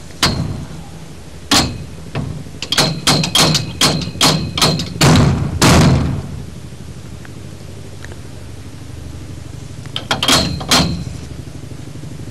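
Metal clanks and knocks from the steel frame of a portable horse-stall panel being worked into its connection, each strike with a brief ring. A rapid run of clanks fills the first six seconds, then a short cluster comes about ten seconds in.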